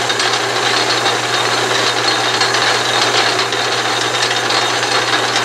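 Atlas/Craftsman 12-inch metal lathe running under its electric motor, a steady hum with a busy mechanical rattle from the drive and gearing, the spindle turning in reverse to bring the carriage back along the thread with the cutting tool backed clear of the work.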